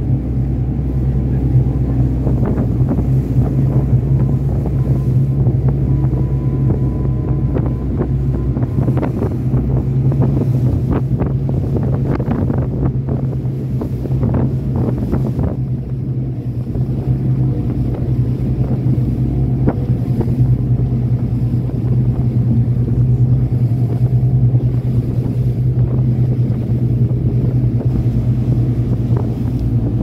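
RIB speedboat engine running with a steady low drone, wind buffeting the microphone. A flurry of sharp knocks, the hull slapping on the water, comes through the middle stretch.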